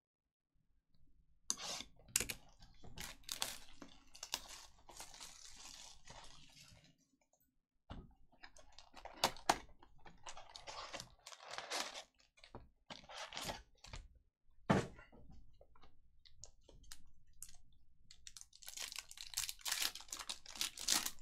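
Trading-card packs and boxes being opened by hand: plastic wrapper crinkling and tearing in several spells, mixed with sharp clicks and taps of cardboard and cards being handled.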